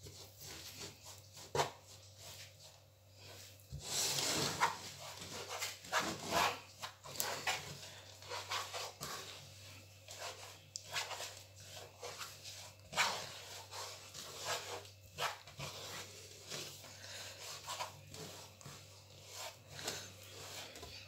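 Wooden spatula scraping and stirring peanuts through sticky melted sugar in a nonstick frying pan: an uneven run of scraping strokes, busiest from about four to seven seconds in, over a low steady hum.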